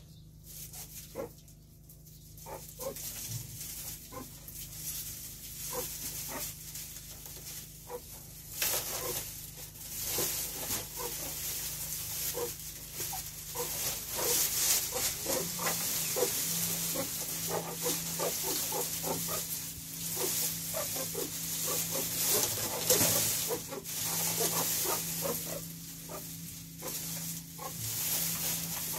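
Meerkats, young pups among them, calling in many short calls, a few a second, sparse at first and coming thick and fast from about a third of the way in, over a hiss of rustling straw.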